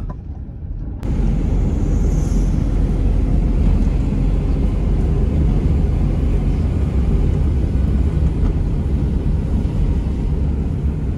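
Road and engine noise inside a small car driving on a wet road: a steady low rumble with a hiss over it, stepping up louder about a second in.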